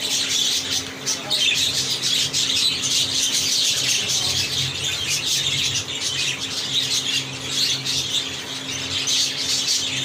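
Exhibition budgerigars chattering: a dense, continuous warble of chirps and squawks, over a steady low hum.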